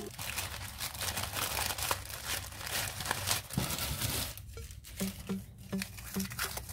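Packaging crinkling and tearing: a dense run of crackles as a toy is unwrapped. Faint pulsing music comes in near the end.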